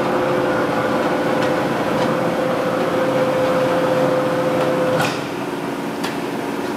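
A Blanchard 22K-42 vertical-spindle rotary surface grinder running with a steady hum. The hum cuts off with a click about five seconds in, and the machine noise drops a little.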